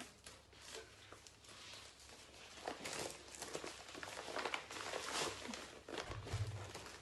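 Faint rustling and crinkling of plastic packaging being handled, busier after the first couple of seconds, with a brief low bump near the end.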